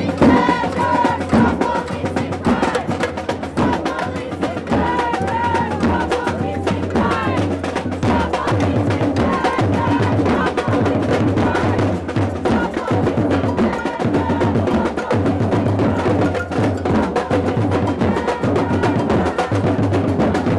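A samba-style street protest drum band plays a fast, steady groove on drums, including shiny metal-shelled snare-type drums. Voices call out over the drumming in the first several seconds.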